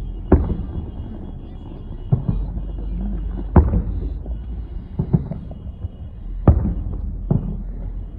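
Fireworks shells bursting: a run of about seven sharp bangs at uneven gaps of a second or so, over a continuous low rumble.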